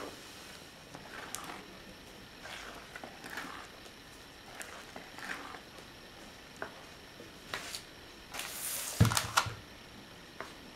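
Spatula folding whipped egg whites into chocolate batter in a ceramic bowl: soft, wet scraping strokes with a few light clicks against the bowl. A louder rustle and thump come about nine seconds in.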